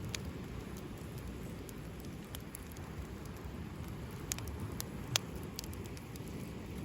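Wood campfire burning, crackling steadily over a low rush, with a few sharp pops, the loudest about five seconds in.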